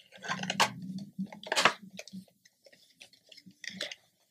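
Fingers scratching, tapping and prying at a cardboard Funko Pop box to open it: a run of small scrapes and clicks, with two sharper snaps about half a second and a second and a half in.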